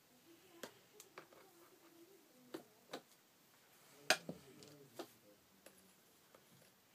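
Long tweezers clicking and tapping against a plastic tarantula enclosure and its contents: a string of sharp, separate clicks, about eight in all, the loudest about four seconds in.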